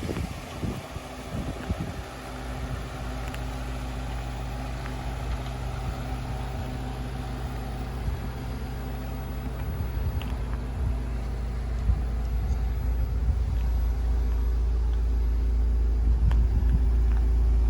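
Mitsubishi Galant VR4's turbocharged 4G63 inline-four engine droning at a steady speed on the move, its low hum holding pitch while growing gradually louder. A brief gust of wind on the microphone near the start.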